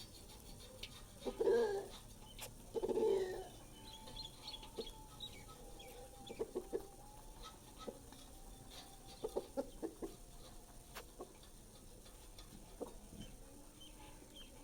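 An animal, bird-like, calls twice near the start, two short calls a second and a half apart, followed by scattered faint clicks and ticks.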